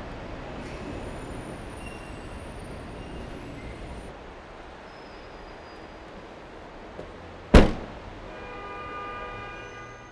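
Parking-garage ambience with a low traffic rumble; about seven and a half seconds in, a car door slams shut once, the loudest sound, with a short echo. A steady pitched tone follows for about two seconds near the end.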